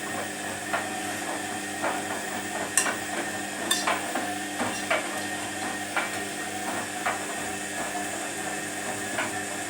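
Front-loading washing machine running, a steady motor hum with a knock or clack about once a second as the drum turns.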